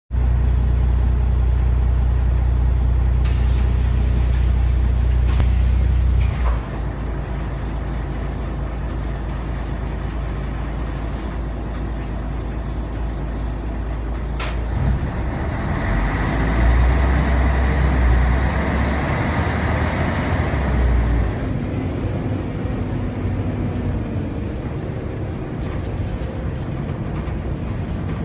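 Inside a Scania L113TRB bus: its 11-litre six-cylinder Scania DSC1171 diesel runs with a heavy low drone. Compressed air hisses out about three to six seconds in, and the drone drops suddenly just after. The engine then swells for several seconds around the middle as the bus drives, before settling back.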